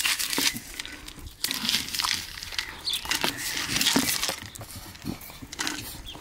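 A dog pawing and nosing a red plastic treat-dispensing wobble toy across patio tiles. It makes irregular knocks, scrapes and rustles close to the microphone.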